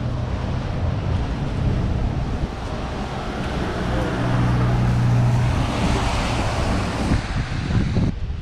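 Traffic on a rain-soaked road: tyres hiss through the surface water over a low steady engine hum. The hiss swells to its loudest about six seconds in and cuts off sharply near the end.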